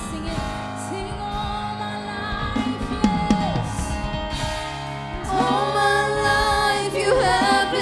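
Church worship music played live for the offering: instruments hold sustained chords, and singing comes in louder about five seconds in as a gospel song begins.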